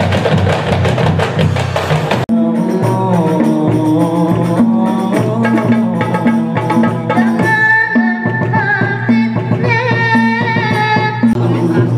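Marawis ensemble: hand drums beating a fast rhythm, with a sudden cut about two seconds in to another group, where a lead singer sings sholawat into a microphone over the frame drums.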